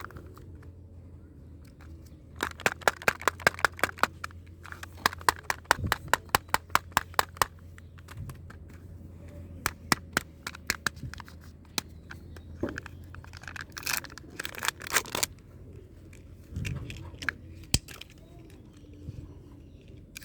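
Close-miked crunching of Maltesers, the malted-milk honeycomb centres cracking in runs of quick, crisp clicks, several short bursts with pauses between.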